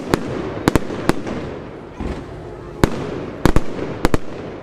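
Aerial fireworks display: about nine sharp bangs from shells bursting, several in quick pairs, over a continuous background noise, with a low thud about two seconds in.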